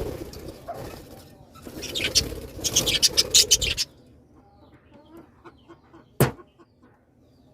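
A colony of birds calling, with loud, dense flurries of calls and rustle for about the first four seconds, then softer scattered chirps and one sharp sudden sound about six seconds in.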